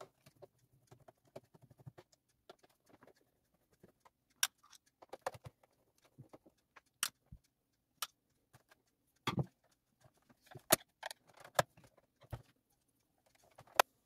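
Irregular sharp clicks and light knocks of hand tools on the plastic body of a Xiaomi Mi Robot Vacuum 1S, a screwdriver and a thin pry tool working at the rear bumper.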